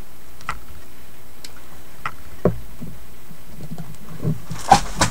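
Scattered light clicks and taps from craft supplies being picked up and handled on a table, with a louder knock about two and a half seconds in and a short clatter with a brief rustle near the end, over a steady low hum.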